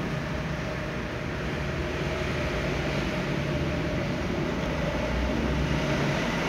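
Steady mechanical rumble with a faint hum running under it.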